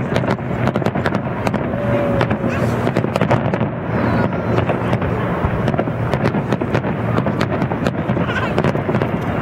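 Aerial fireworks shells bursting in quick succession: a steady run of bangs and crackles, several each second, over a general background din.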